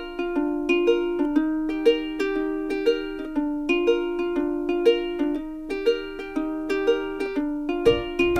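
Background music: a light plucked-string instrumental tune, its notes ringing and fading in a steady, even rhythm with an accent about once a second.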